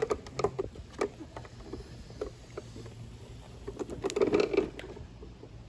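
Irregular light clicks and knocks of plastic toys being handled, with a busier clatter about four seconds in.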